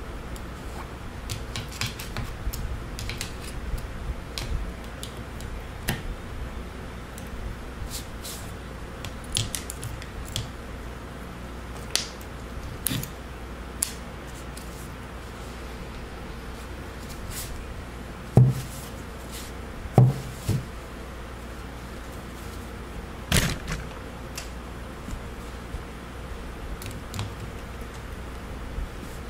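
Metal clicks and knocks of pliers and a Gresen hydraulic control valve being handled on a workbench during reassembly, with a few louder knocks about 18, 20 and 23 seconds in.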